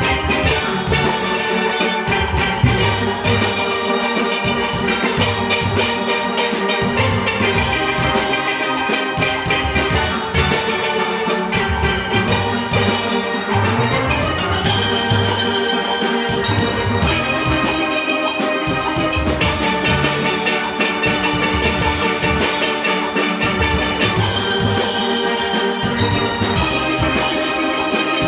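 Steel orchestra playing: a steelpan ensemble with many pans sounding melody and chords over bass pans and a steady drum-kit rhythm.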